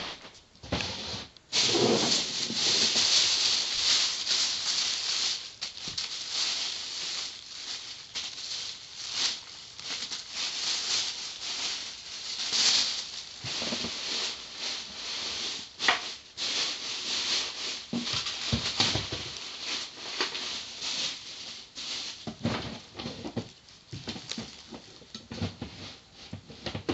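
Hands rummaging among plastic action figures and their accessories: rustling with the rattling and clicking of small hard plastic pieces. It is loudest for a few seconds near the start, with an occasional sharper knock later.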